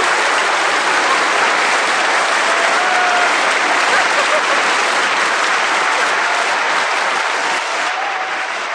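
Large audience applauding steadily, a dense wash of clapping with a few scattered cheers and whoops over it. The applause eases slightly near the end.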